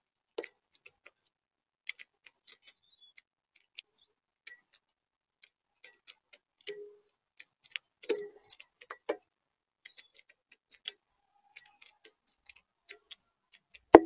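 Blue jays pecking at peanuts and seed in a feeder tray: irregular sharp clicks and taps, with a few duller knocks, the loudest at the end.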